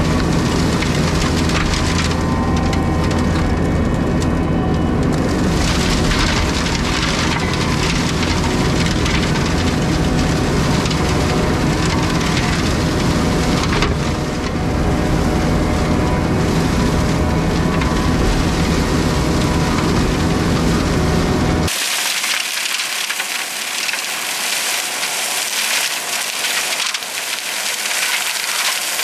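Skid steer engine running steadily with a Brush Hound FH-series flail mower's drum spinning, cracking and shredding brush and wood. About three-quarters of the way through, the low engine hum drops out abruptly, leaving a hissing, crackling noise.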